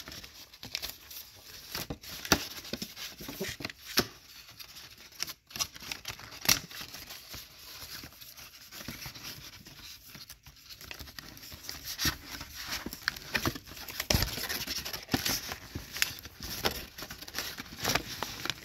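Paper instruction booklets and a cardboard phone box being handled as the papers are slid back in: paper rustling and crinkling with scattered clicks and taps, busier near the end.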